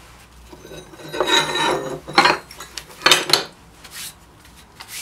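Machined metal plates scraping and clanking against one another as they are picked up and moved about: a scrape about a second in, then a few sharp clanks.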